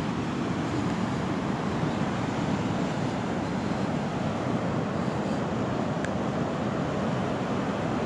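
Sea waves breaking on a sandy beach: a steady rushing surf, with some wind on the microphone.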